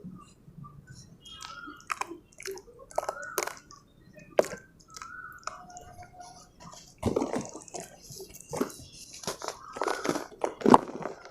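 Set pure cement pieces being crumbled and crushed: a run of separate sharp crunches and cracks that grows denser and louder about seven seconds in, with one loud snap near the end.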